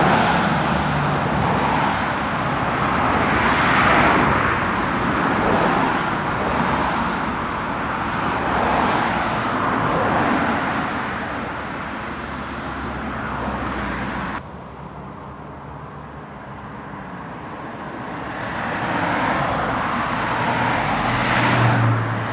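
Vehicle running with engine and road noise, swelling and fading. It turns suddenly quieter and duller about two-thirds of the way through, then builds up again near the end.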